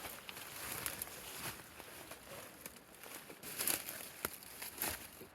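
Rustling and crackling of leaves and brush with scattered sharp snaps and clicks, as someone moves on foot through undergrowth; the snaps come thicker about three and a half seconds in.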